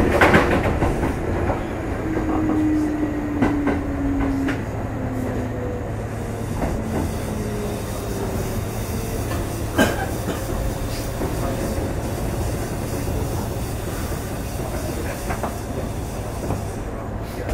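Kintetsu 2610-series electric train heard from inside motor car Mo 2668 as it slows into a station: a whine falls in pitch over the first few seconds, then the car settles into a steady low hum, with a sharp click about ten seconds in.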